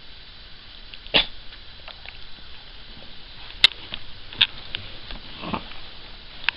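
A Cavalier King Charles Spaniel's short, sharp nasal burst about a second in, then fainter sniffing noises, with a couple of sharp clicks midway.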